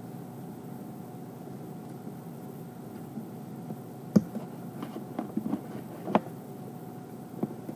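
Handling noise from paracord being worked tight on a bracelet: a sharp knock about four seconds in, then a scatter of small taps and clicks, over a steady background hum.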